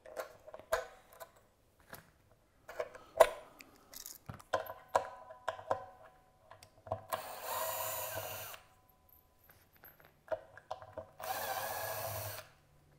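Cordless drill-driver backing out the screws of a Stratocaster tremolo bridge, in two short runs of about a second and a half each, one about halfway through and one near the end. Before the runs come scattered small clicks and knocks from handling the tool and parts.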